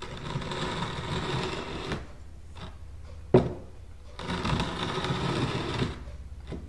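An old brick dragged across a polyurethane-finished wooden board, scraping in two strokes, as a scratch test of the finish. A single sharp knock comes between the strokes.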